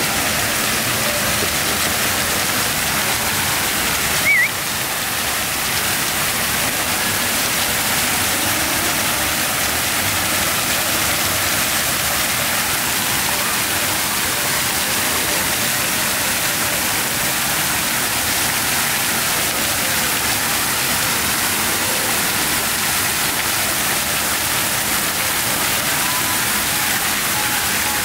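Ground-level plaza fountain: dozens of small water jets spray up from the paving and splash back down, a steady rushing hiss. A brief, sharp, high-pitched sound rises above it about four seconds in.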